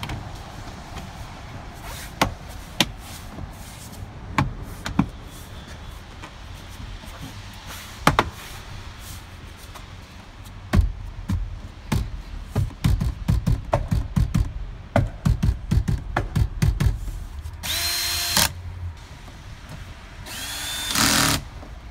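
Jeep Grand Cherokee ZJ door panel being fitted back on: scattered sharp snaps and knocks, then a quick run of knocks as it is pressed into place. Near the end a cordless drill/driver runs twice, about a second each time, driving in the panel screws.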